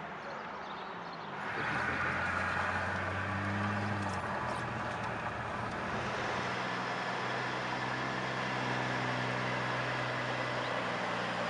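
A car driving along a highway: a steady engine hum and road noise, getting louder about a second and a half in and then holding steady.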